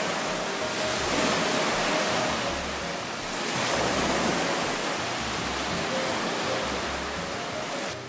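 Surf breaking and washing up a sand beach, a steady rush that swells twice, about a second in and again about four seconds in, with faint background music underneath.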